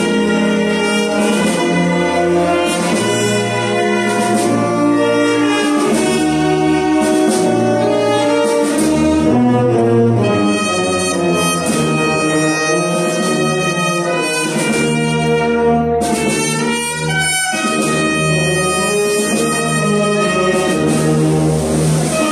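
Brass band playing a slow funeral march, long held chords of trumpets and trombones over a low bass line. About sixteen seconds in the music breaks briefly with a short falling slur, then carries on.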